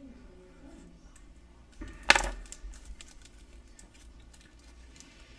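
Thin clear plastic bag being handled and cut open with a scalpel, with small crinkles and ticks and one sharp crackle about two seconds in.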